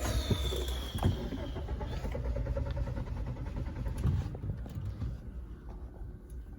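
Car engine being cranked on the starter without catching: an uneven low churning that runs for about four seconds with a falling whine at the start, then eases off. It is the car that cranks but won't start, which the owner thinks may be a fuel injector, fuel pipe or spark plug problem.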